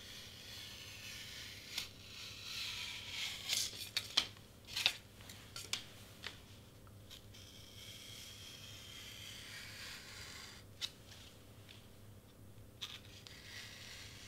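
Pink Excel Blades craft knife slicing through thick cardstock on a cutting mat: a steady scratchy rasp as the blade is drawn along the line. A cluster of sharp ticks comes about two to six seconds in.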